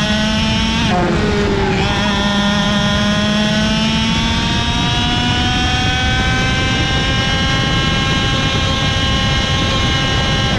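Two-stroke KZ shifter kart engine at full throttle, recorded onboard: the pitch drops sharply with an upshift about a second in, then climbs steadily as the kart pulls down the straight.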